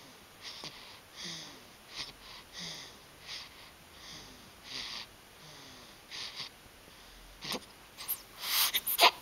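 Snoring in quick, short, hissy breaths, some with a faint falling whistle. A few louder, sharper noises come in the last two seconds.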